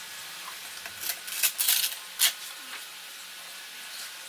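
Hands rubbing and brushing across the sandpaper disc of a stationary disc sander, with the motor stopped: a handful of short scratchy strokes in quick succession.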